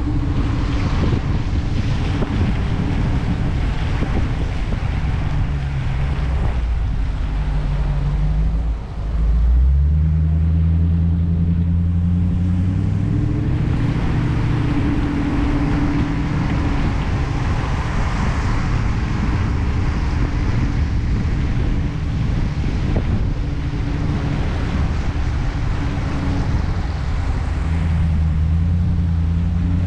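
Dodge Challenger R/T's 5.7-litre HEMI V8 pulling up a steep winding road, its low engine note rising and falling with the throttle, under wind noise on the microphone. Near nine seconds the sound dips briefly, then the engine comes back louder and its pitch climbs as the car accelerates.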